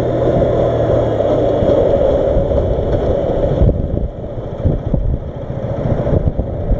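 KTM RC 125 single-cylinder engine running under way, mixed with a steady rush of wind on the helmet-mounted microphone. About four seconds in the rush drops noticeably as the bike slows behind traffic.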